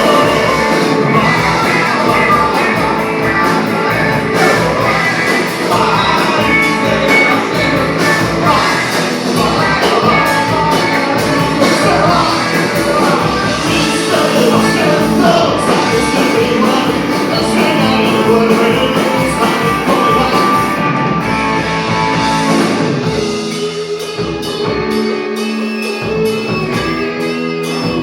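Rock band playing live with a singer, full band with guitar. About three quarters of the way through, the music thins out to a sparser, quieter passage.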